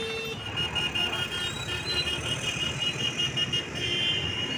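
Busy street traffic with motorbikes passing, and a high-pitched tone beeping in quick, even pulses over it.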